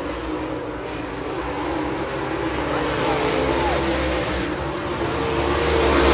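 Dirt late model race cars' V8 engines running at speed on the dirt oval, a steady engine drone that grows louder near the end as a car comes close along the wall.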